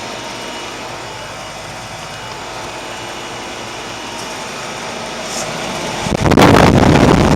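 A 2004 Carrier 3-ton heat pump's outdoor unit runs steadily in heat mode: its reciprocating compressor and condenser fan hum evenly. About six seconds in, a loud rushing noise rises suddenly and swamps the hum.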